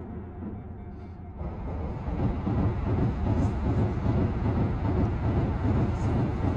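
Train running past on the tracks below, its rumble and wheel noise swelling about a second and a half in and then holding steady.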